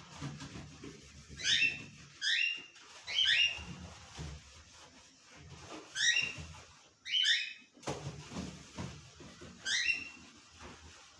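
A small animal's short, high-pitched calls, each dropping in pitch, repeated about nine times in irregular pairs and threes, over faint low knocking and clatter.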